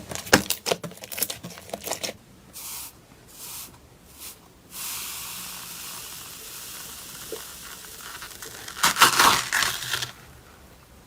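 Slime being handled close to the microphone: a quick run of clicks and pops, then a few short hisses and a steadier hiss, then a loud burst of crackling near the end.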